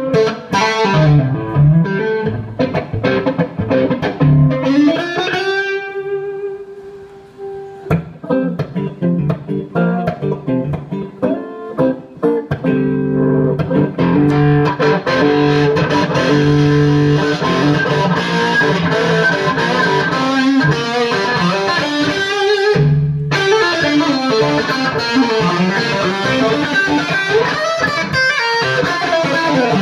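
Electric guitar played through an amplifier. It begins with picked single notes and a note bent up and held about five seconds in. Sustained chords ring from about thirteen seconds in, stop briefly near twenty-three seconds, and then the playing resumes.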